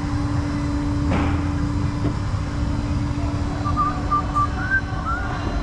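Vehicle engine idling steadily with a constant hum over a low rumble, a brief hiss about a second in, and a few faint high chirping notes in the second half.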